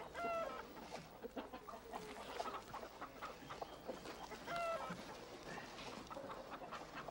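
A flock of hens clucking as they hurry in to feed, with two short clucking calls, one just after the start and one about four and a half seconds in, over scattered small clicks and scuffs.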